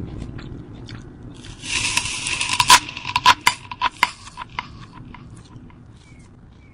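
A quick run of sharp metallic clinks and rattles, with a ringing note, from about two to four and a half seconds in, over a low steady rumble.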